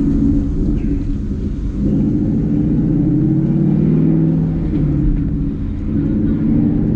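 Ford Mustang GT's 5.0L Coyote V8 heard from inside the cabin while driving, its exhaust note through an AWE Touring catback with an H-pipe and mufflers. The engine note shifts in pitch about two seconds in.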